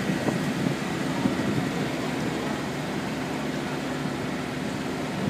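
Boat engine running with a steady hum under a broad rush of wind and water.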